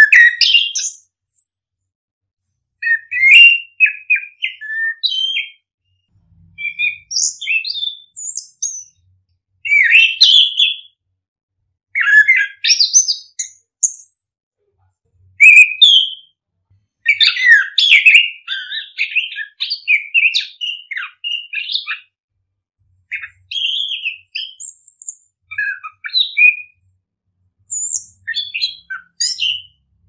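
A ground thrush singing in a run of rapid, varied whistled phrases, each a second or two long, with short silent pauses between them.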